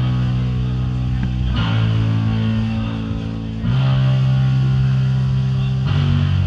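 Doom metal band playing live: slow, heavy, sustained guitar chords, each held about two seconds before changing to the next.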